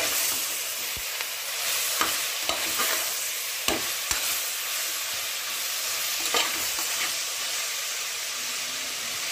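Onions, tomatoes and fresh mint and coriander sizzling as they sauté in oil in a pressure cooker. A metal spoon stirring them scrapes and knocks against the pot several times, loudest about four seconds in.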